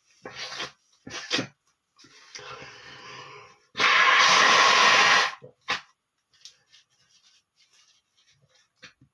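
A man blowing his nose hard for about a second and a half, after two short sniffs and a softer snuffling stretch. A short sharp snort follows, then faint sniffles.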